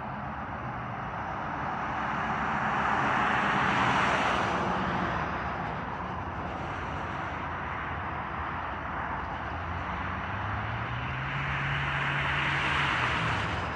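Road vehicles passing twice, each swelling up and fading away over several seconds, over a low, steady engine drone.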